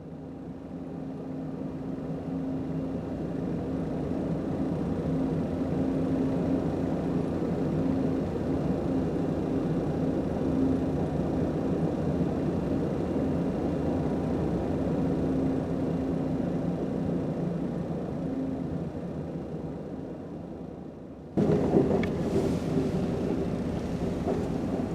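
Amtrak Silver Star passenger train running, a steady rumble with a low hum. About 21 seconds in the sound abruptly gets louder and harsher.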